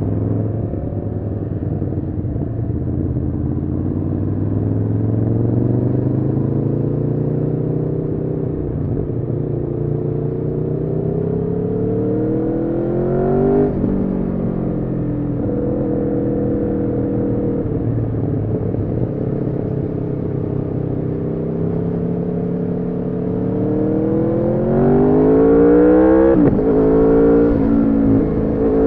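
Aprilia Tuono V4's V4 engine through an Arrow slip-on exhaust with the catalytic converter removed, pulling under load as the bike rides. Its pitch climbs slowly for about ten seconds, drops sharply around the middle at a gear change, holds, then climbs again and drops sharply near the end before rising once more.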